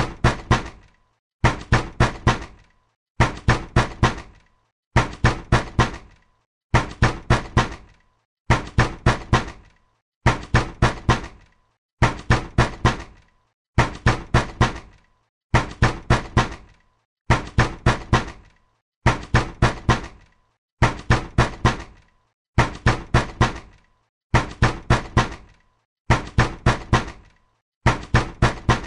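Hard, angry knocking on a door: quick groups of about four heavy knocks, repeated without let-up roughly every second and three quarters.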